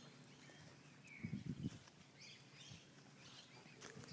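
Faint outdoor quiet with scattered short bird chirps, and a brief low muffled sound about a second and a half in.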